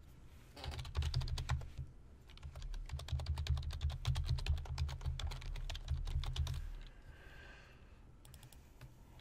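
Typing on a computer keyboard: a short run of quick keystrokes, a brief pause, then a longer run of rapid keystrokes that stops about two-thirds of the way through.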